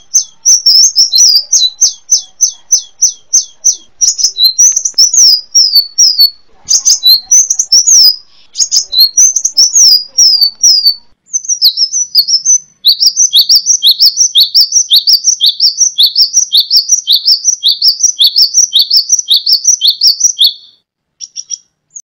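Kolibri wulung sunbird singing: a fast jumble of sharp, high chirps and downward-slurred notes, which settles about halfway through into a steady run of about three quick notes a second before stopping shortly before the end.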